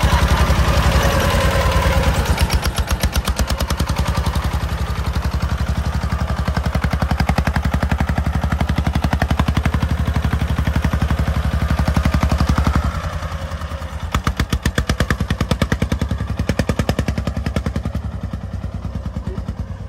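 Single-cylinder diesel engine of a sand-laden công nông three-wheeled farm truck running with rapid, even exhaust beats. About two-thirds of the way through it suddenly becomes quieter as the truck pulls away.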